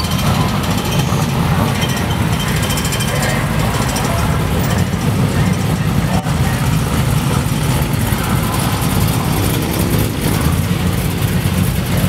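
Classic American eight-cylinder car engines running at low speed as the cars cruise past one after another, a steady low engine burble.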